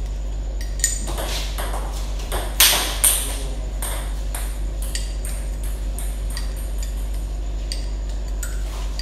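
Table tennis ball clicking off DHS Hurricane King III blades and the table in an irregular rally, with the loudest knocks about two and a half to three seconds in. A steady low hum sits underneath.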